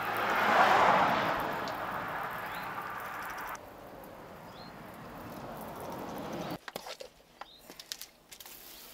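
Water splashing onto a truck wheel as it is rinsed. A rush of water swells in the first second and fades, a quieter wash follows, and near the end come scattered small splashes and drips.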